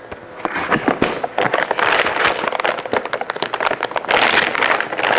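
Packaging crinkling and crackling as a box of frozen tempura shrimp is opened and its plastic bag pulled out, a dense run of small crackles starting about half a second in.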